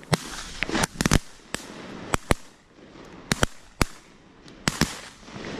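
A rapid volley of about a dozen shotgun blasts from several hunters shooting at ducks. The shots are unevenly spaced, some in quick pairs, each a sharp crack with a short echo.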